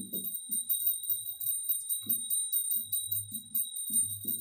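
Marker writing on a whiteboard: a string of short, soft strokes, over a steady high-pitched electronic whine.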